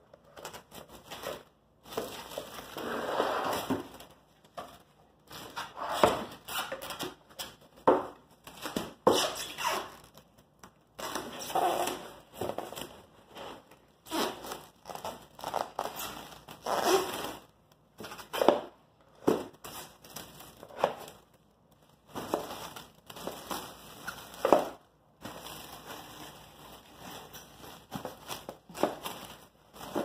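Clear plastic stretch wrap being pulled off a handheld roll and wound tight around a birdhouse, crackling and crinkling in short, irregular spells with brief pauses between them.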